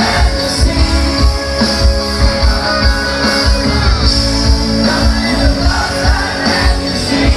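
Rock band playing live through a concert sound system: electric guitars, bass and drums with a steady beat.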